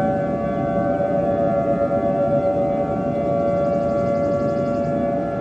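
Civil defense siren sounding the attack warning, its pitch holding nearly steady, over a low rushing noise.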